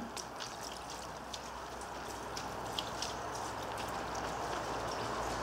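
Diluted rust-preparation cleaner pouring from a watering can over and into a steel ammo box: a steady splashing trickle that grows slightly louder.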